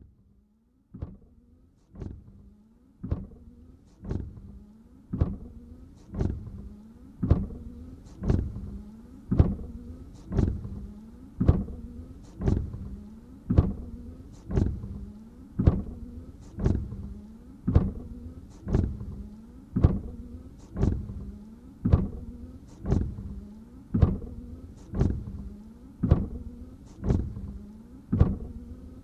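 Car windshield wipers sweeping across dry glass with no washer water, a steady rhythm of about one stroke a second, each pass starting sharply and fading. The strokes grow louder over the first few seconds, then hold even.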